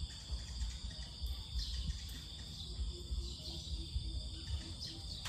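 Insects chirring in a steady high-pitched chorus over a low, uneven rumble. A faint run of short, evenly spaced low notes sounds in the middle.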